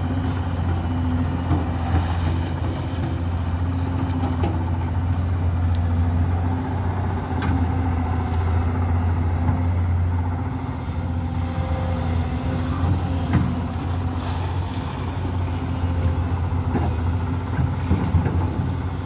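Hyundai crawler excavator's diesel engine running steadily as the boom swings and the bucket digs, with a few brief knocks.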